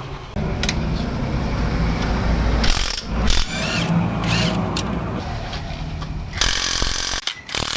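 Power tool running in two short loud bursts, about three seconds in and again near the end, over a steady low mechanical hum, during work to remove the motorcycle's exhaust.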